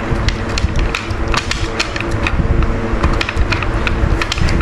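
A puppy gnawing on a hard chew horn: irregular sharp clicks and scrapes of teeth against the horn, over a steady low background hum.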